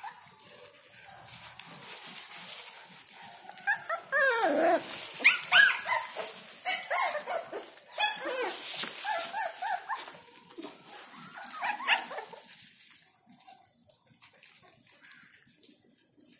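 A litter of puppies whimpering and yelping while they crowd under their mother to suckle: a run of short, high squeals that glide up and down, starting about four seconds in and dying away about three-quarters of the way through.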